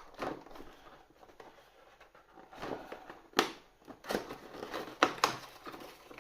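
Cardboard advent-calendar door and the packaging behind it being torn open and handled: faint crinkling with several sharp clicks and snaps, the loudest about three and a half seconds in.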